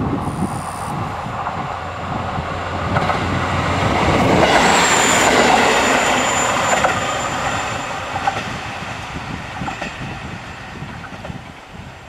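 A KiHa 40 diesel railcar passing close by and running away. Its engine and wheels build to a peak about four to six seconds in, then fade. A thin, high, steady wheel squeal starts about four and a half seconds in.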